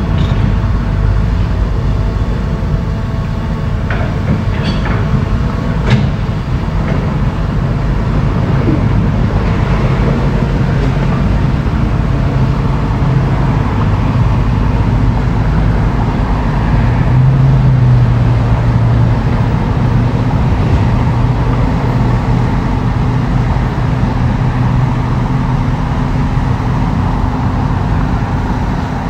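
Diesel engine of heavy earthmoving machinery running steadily, swelling and rising slightly in pitch about 17 seconds in, with a few sharp knocks between about four and six seconds in.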